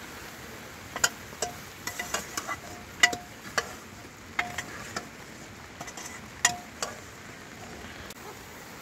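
Metal spoon stirring mutton in an aluminium cooking pot over a wood fire, clinking against the pot: a string of about fifteen sharp, ringing clinks between about one and seven seconds in, over a steady hiss.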